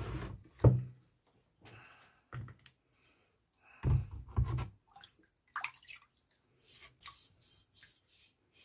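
Water splashing and dripping in a bowl as a sharpening stone is scrubbed with a sponge and lifted out, in short separate splashes with quiet gaps, the loudest about four seconds in.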